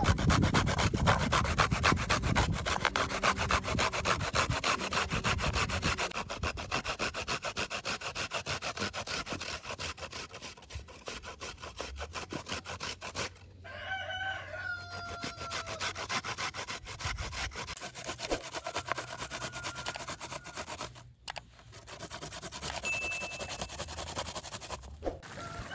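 Fresh coconut flesh being grated on a hand-held metal grater over an aluminium bowl: quick rasping strokes in a steady rhythm.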